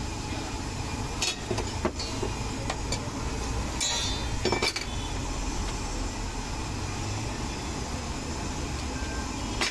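A metal spatula clinking sharply against a flat iron tawa a few times, loudest about four and a half seconds in, over a steady low rumble.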